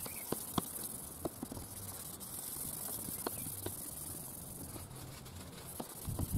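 Hand-held abrasive restoration pad rubbed over a plastic headlight lens: a faint scuffing hiss with scattered light clicks and taps. A louder low rumble comes in near the end.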